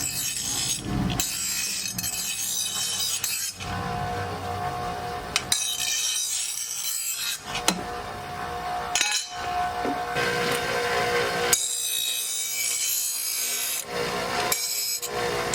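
Metal file rasping along the cutting edge of a steel lawn mower blade in long strokes with short breaks between them: the blade being sharpened.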